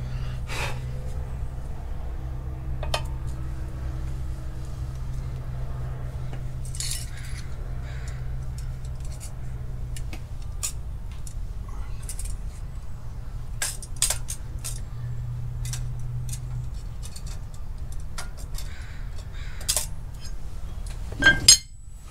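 Scattered light metallic clicks and clinks of small tools and parts being handled, over a steady low hum, with a louder clack near the end.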